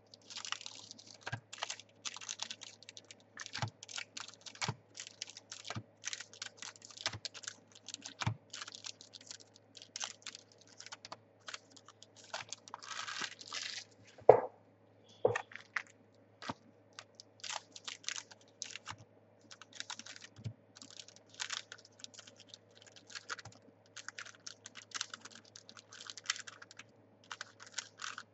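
Trading cards being handled: a rapid, irregular run of small clicks and rustles as cards and packs are flicked through and sorted, with one sharper click about 14 seconds in.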